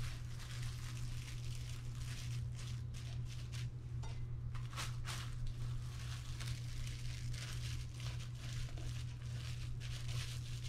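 Plastic wrap crinkling in quick crackles as it is folded and pressed over a loaf pan, with a steady low hum underneath.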